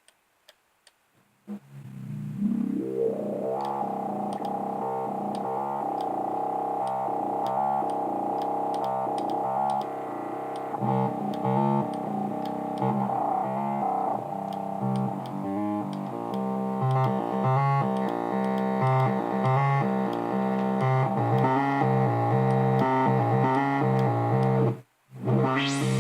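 A synthesizer patch played on the Rolend JP-680 VST: a held chord fades in with a rising filter sweep, then takes on a fast rhythmic pulsing pattern. It cuts off abruptly about a second before the end.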